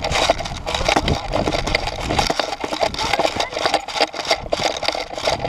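Irregular crunching and scraping of footsteps and gear while moving on foot across dry, hard dirt, with rustling and knocking against the body-worn camera.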